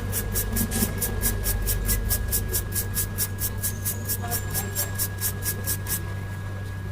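Brush scrubbing a phone logic board with quick back-and-forth strokes, about four to five a second, cleaning flux residue from around a newly soldered connector; the scrubbing stops about six seconds in.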